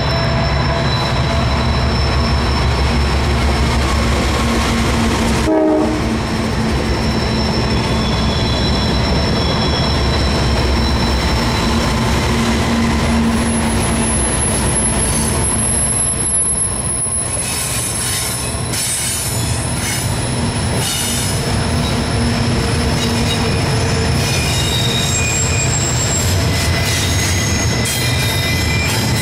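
Norfolk Southern double-stack intermodal train passing close by, led by a GE Dash 9-40CW diesel locomotive: deep diesel rumble as the locomotives go by, giving way to the rumble of wheels on rail under the stack cars. High-pitched wheel flange squeal from the tight curve runs over it.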